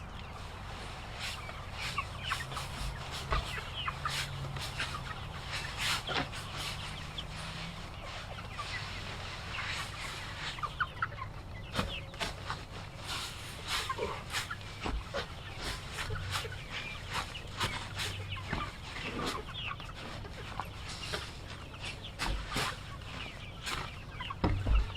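A flock of young laying hens clucking and chirping, with many short calls overlapping.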